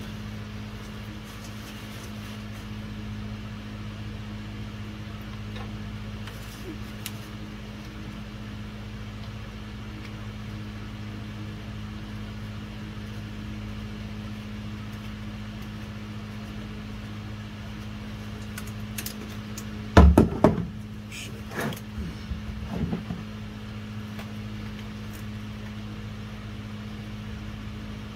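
A steady low hum, with a few sharp clicks and one loud knock about twenty seconds in as a hand tool works loose the plastic fill plug of a VW transmission.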